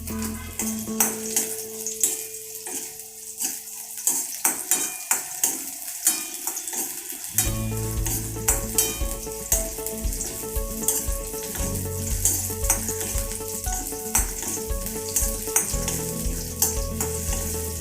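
Pieces of pirandai (Cissus quadrangularis stem) sautéing in hot oil in a pan, with a steady sizzle. A spatula repeatedly clicks and scrapes against the pan as they are stirred.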